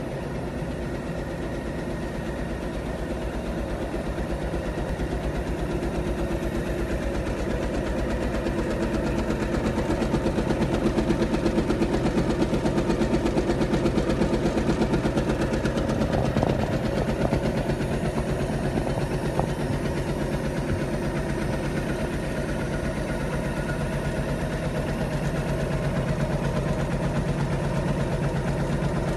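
Fromac multi-needle sewing machine running, its row of needles stitching wide fabric in a fast, even rhythm over a steady mechanical hum.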